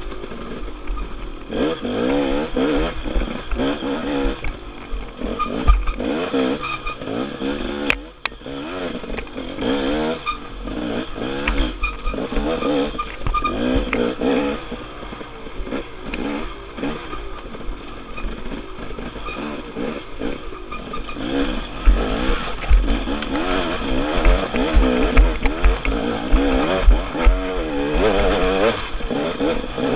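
Dirt bike engine revving up and down over and over as the rider works the throttle along a rough, rocky forest trail, with low knocks and thuds from the bumps. A single sharp click about eight seconds in.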